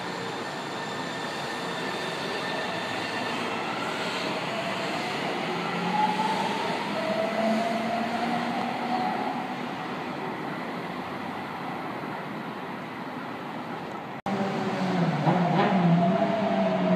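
São Paulo Metro trains moving through the station: a steady rumble with the electric traction motors' tones gliding up and down in pitch. The sound breaks off abruptly about 14 seconds in, then returns louder with another set of rising and falling motor tones.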